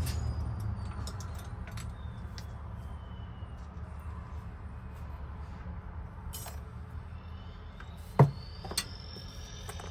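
Small metallic clicks and clinks of hand tools on lock parts, with one sharp knock about eight seconds in and a lighter one just after, over a steady low hum.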